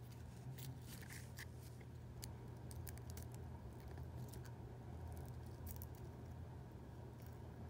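Faint, scattered crackles and ticks of a dry, papery Tecoma stans (yellow bells) seed pod being pulled apart by hand, most of them in the first few seconds, over a steady low hum.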